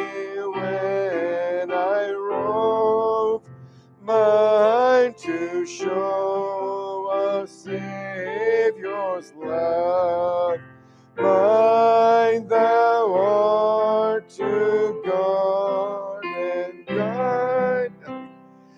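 A hymn sung in phrases by a man's voice leading a small congregation, with piano accompaniment. The held notes waver, with short breaks between lines.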